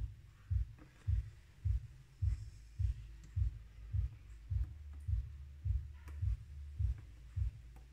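A regular low thumping, a little under two thumps a second, with a low steady hum joining in for a few seconds after the middle. A few faint clicks come from the espresso machine's panel buttons being pressed.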